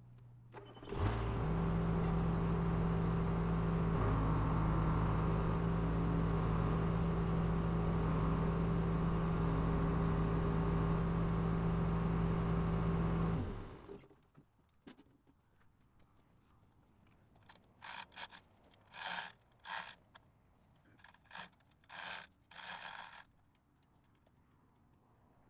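John Deere backhoe's diesel engine rising sharply to a steady run about a second in while the boom lowers a tree on a chain, then shutting off about halfway through. After a pause, a string of short scrapes as the tree's root ball is worked into the soil.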